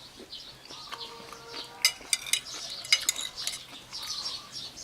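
Cutlery clinking and scraping on a plate during a meal, with a few sharp clinks about two and three seconds in. Birds chirp faintly in the background.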